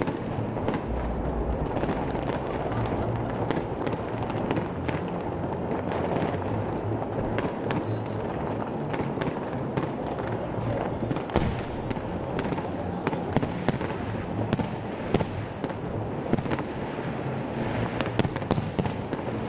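Fireworks display: a rapid, irregular run of pops, cracks and bangs from bursting aerial shells over a continuous din, with the sharpest bangs in the second half.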